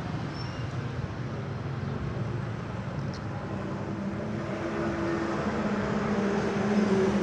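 A steady motor-vehicle engine hum, low and droning, that grows louder over the second half, as a vehicle passing close by would; a faint click about three seconds in.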